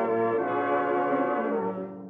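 Orchestral closing music led by brass, with horns and trombones holding sustained chords that shift every half second or so. The music dips briefly near the end before the next chord comes in.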